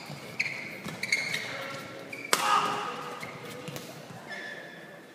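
Short squeaks of sports shoes on a badminton court mat, with a few sharp knocks; the loudest is a crack about two seconds in.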